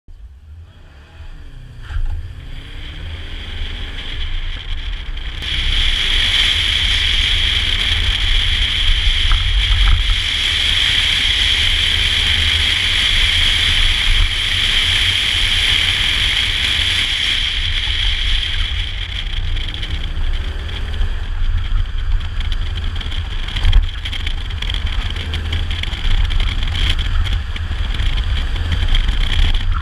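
A 2007 Subaru Legacy GT spec.B setting off and driving hard through an autocross course. From a camera outside the driver's door it is mostly wind and road rush over the car's engine. The rush builds over the first few seconds and stays loud, with a strong hiss for about ten seconds after that.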